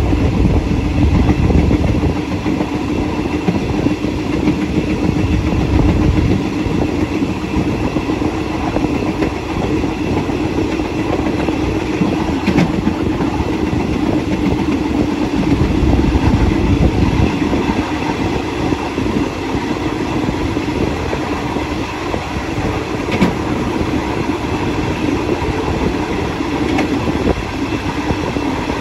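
Passenger train running on the track, heard from its last carriage: a steady rumble of the wheels on the rails, with two sharp clicks, one about midway and one later.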